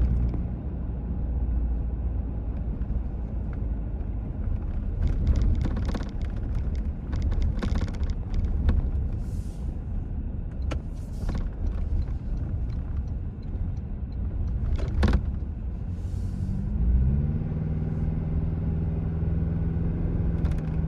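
Cabin road noise and drivetrain rumble in a 2025 Toyota Tacoma driven over bumps, with scattered clicks and knocks of interior plastic rattling. The loudest rattles are the friction-held tray behind the dash screen bouncing plastic-on-plastic against the dash. Near the end the engine note rises as the truck accelerates.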